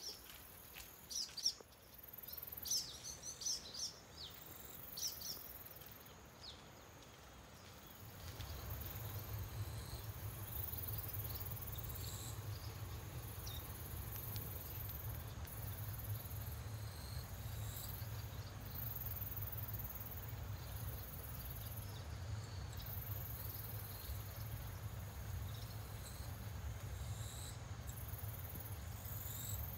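Rural outdoor ambience: a few short bird chirps in the first seconds, then, from about eight seconds in, a steady low hum with faint high-pitched insect buzzing and occasional chirps over it.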